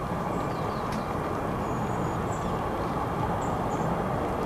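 Steady low outdoor rumble, with faint high bird chirps now and then.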